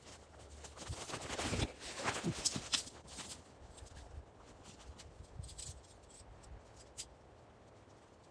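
Faint rustling with scattered light clinks and clicks, loudest about one to three seconds in; one sharper click near seven seconds.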